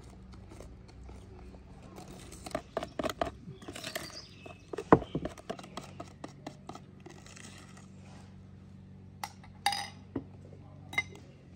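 A wire whisk clicking against a plastic bowl in short spells, with scattered utensil knocks, the loudest about five seconds in, over a steady low hum.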